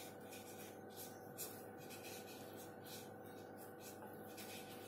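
Marker pen writing on a whiteboard: a string of short, faint, scratchy strokes as a word is written, over a faint steady hum.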